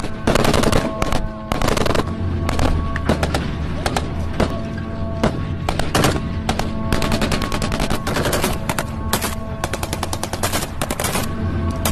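Kalashnikov-type assault rifles firing in rapid bursts and single shots, heaviest in the first two seconds, with steady background music underneath.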